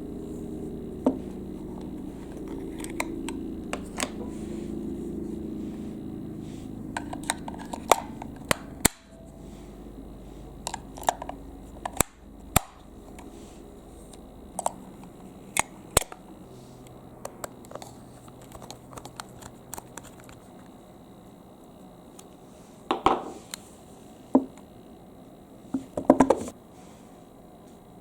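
Plastic marble-run track pieces being handled and fitted together, giving scattered sharp clicks and clacks. For the first nine seconds a steady low hum runs under them, then it stops abruptly.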